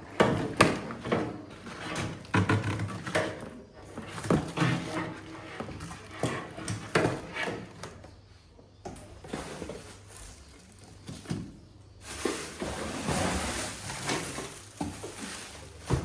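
Plastic parts and packaging of a new wet-and-dry vacuum cleaner being handled during unboxing: irregular knocks, clatters and rustling, with a steadier rustle over the last few seconds.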